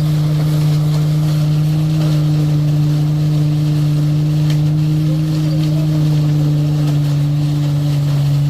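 A motor or engine running steadily at constant speed: a loud, even, low hum that does not change.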